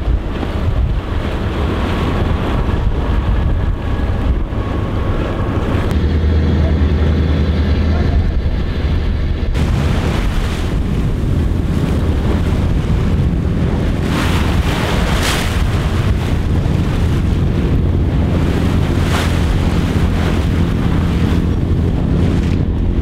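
Sailboat under way: wind buffeting the microphone over rushing water, with a steady low hum underneath, typical of the inboard engine while motoring.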